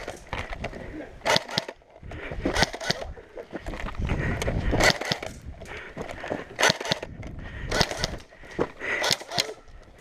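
Irregular sharp clicks and clatter over rustling and handling noise, from an airsoft player moving off through cover.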